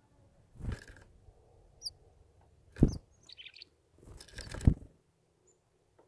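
Small songbirds at a seed feeder giving a few short, high chirps and a brief twittering call about three and a half seconds in. Three loud, rushing noise bursts cut in, near the start, just before the twitter and toward the end.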